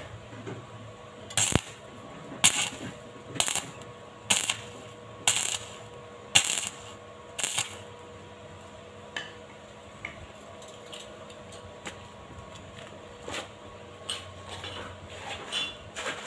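Electric arc welding on a steel tube frame: a series of about seven short crackling bursts, roughly one a second, as the arc is struck for brief tack welds, then fainter scattered ticks.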